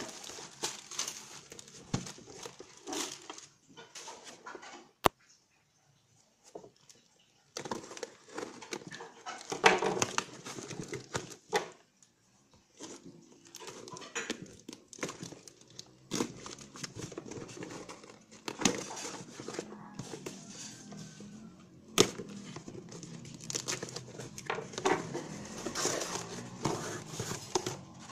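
A parcel being unpacked by hand: a plastic mailing bag crinkling and rustling, then packing tape torn from a cardboard box and the cardboard handled. Irregular rustling with a few sharp clicks and knocks, broken by short pauses.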